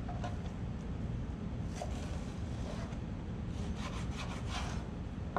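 Kitchen knife slicing through raw yellowfin tuna on a cutting board: faint scraping strokes, a couple near the middle and a quicker run of them toward the end, over a steady low hum.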